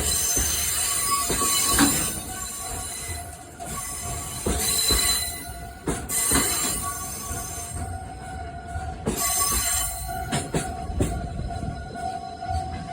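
Freight train wagons rolling past, steel wheels squealing against the rails, with irregular knocks as the wheels pass over rail joints. A steady high tone sounds underneath.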